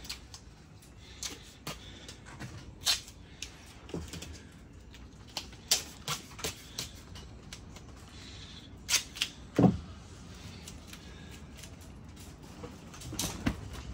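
Duct tape being pulled off the roll and torn into strips, heard as scattered short crackles and snaps, with handling knocks; one heavier low thump about two-thirds through.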